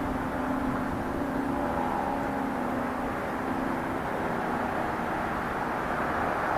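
Federal Signal 2T22 rotating siren sounding a steady low tone that fades about two-thirds of the way through, under strong wind rushing on the microphone.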